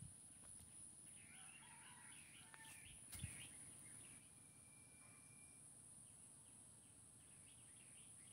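Near silence: faint bird chirps in quick repeated runs over a steady high-pitched hiss, with one soft knock about three seconds in.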